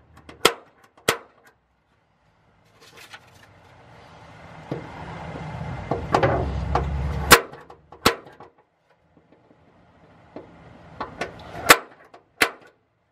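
Spring-loaded center punch snapping against the pickup's sheet-steel bed to mark drill holes, three pairs of sharp clicks. Between the pairs there is a stretch of rustling and scraping.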